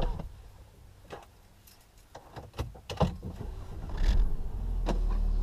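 A few sharp clicks and knocks inside the Audi A5 Cabriolet's cabin, then the car's engine starting about four seconds in and settling into a steady idle.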